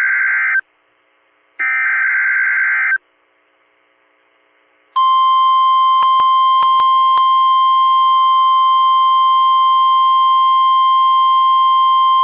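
NOAA Weather Radio EAS/SAME header: warbling data bursts about a second apart, the last two of its three repeats. After about two seconds of quiet, the steady 1050-hertz Weather Radio alert tone starts and holds, with a few faint clicks. The sequence signals a new alert, here a severe thunderstorm watch, about to be read.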